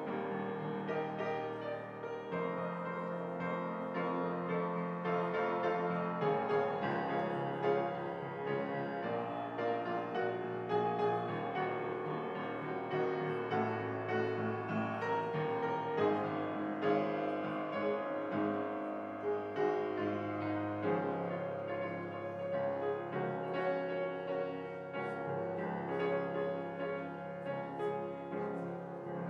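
Grand piano played solo: a piece of held chords with a melody over them, the chords changing every second or two.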